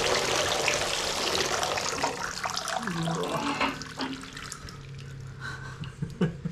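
Milky engine oil draining from a Chrysler 318 marine V8 in a steady pouring stream, easing off to a weaker trickle about four seconds in. The milkiness shows water has got into the oil.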